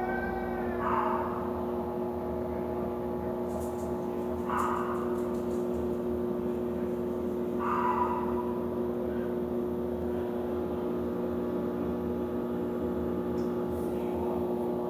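Electrolux washing machine running with a steady motor hum. A short, sharper noise recurs about every three seconds, three times early on: the unwanted noise the machine is making.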